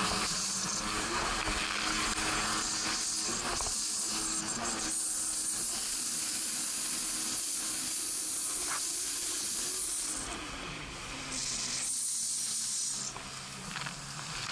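Rushing spray and wind noise from a Bombardier jet ski under way at speed. The engine's steady hum shows through at times, most plainly near the end.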